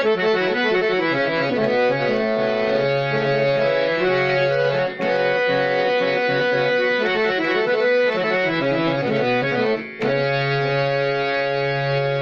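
Harmonium with three sets of reeds (two male, one female) playing a melody in held, sustained notes over a steady low drone. The sound breaks off briefly twice, about five and ten seconds in.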